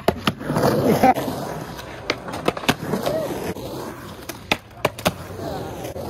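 Skateboard wheels rolling over rough asphalt and up and down a small ramp, with several sharp clacks as the board and wheels strike the ramp and ground.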